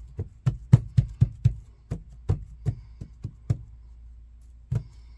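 Hands patting and pressing a non-slip mat down onto a round wooden board to set the super glue: a quick run of dull thumps, three or four a second, that stops about three and a half seconds in, with two more near the end.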